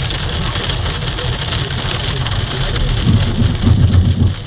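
Wet snow hitting the car's windshield and roof, heard from inside the moving car as a steady rain-like hiss over the low engine and tyre rumble. A louder low rumble swells about three seconds in and drops away just before the end.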